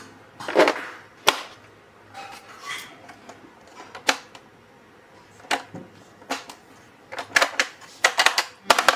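Scattered sharp clicks and taps of small hard objects being handled, single knocks a second or more apart, then a quick run of clicks near the end.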